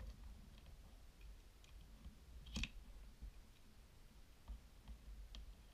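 Faint clicks and taps from hands handling 3D-printed plastic doll parts and a wire stringing hook. One sharper click comes about halfway through.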